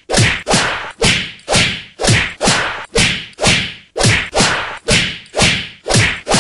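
A rapid run of dubbed-in punch sound effects, about two a second, each a sharp whack that falls in pitch, standing for fists pounding someone under a blanket.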